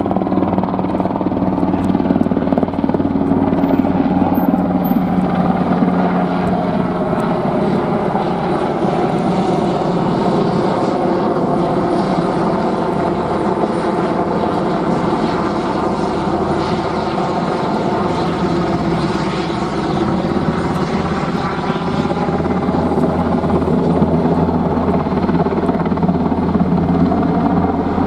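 Military Eurocopter AS532 Cougar helicopter flying overhead, its rotor and turbines making a steady drone.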